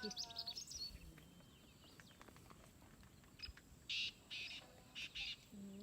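Faint birds chirping outdoors, with a run of short high chirps near the start and four brief harsh, raspy calls about four to five seconds in.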